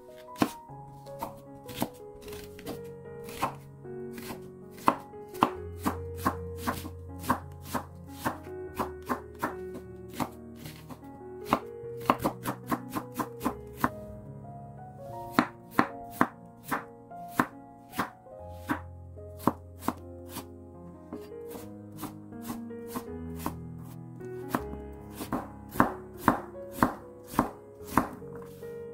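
Chef's knife chopping onion and potato on a wooden cutting board: many sharp knife strikes at an uneven pace, with a short pause about halfway. Soft background piano music plays underneath.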